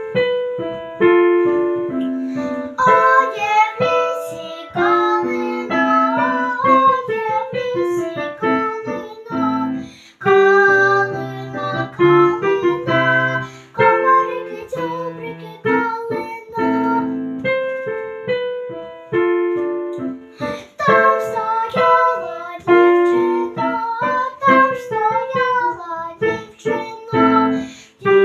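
Electric keyboard playing the song's accompaniment: a quick melody of short stepped notes over a lower bass line, with no break.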